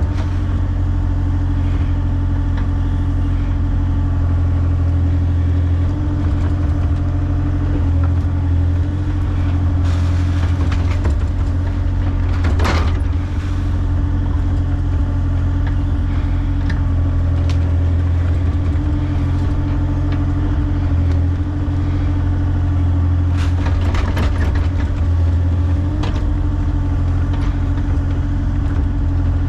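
Excavator's diesel engine running steadily while digging carefully toward a buried oil tank, with a few brief knocks from the bucket.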